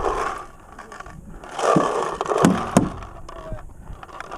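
Paintball markers firing: three sharp pops within about a second near the middle, over a steady noisy background.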